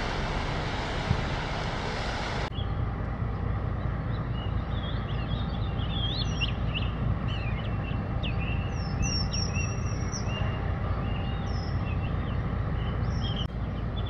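Small songbirds singing, a busy run of short chirps and whistles over a steady low rumble. For the first couple of seconds a louder rushing noise covers everything and then cuts off abruptly.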